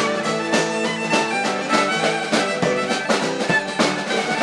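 Live folk dance tune on fiddle and acoustic guitar with a steady beat, the audience clapping along in time.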